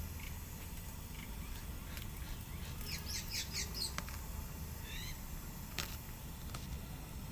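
A quick run of about half a dozen short, high-pitched animal chirps about three seconds in, and a few more around five seconds, over a steady low hum. A couple of faint clicks.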